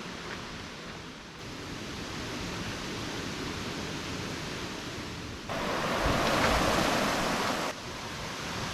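Steady rushing water, a stream running over rocks, as an even hiss. It gets abruptly louder for about two seconds past the middle, then drops back.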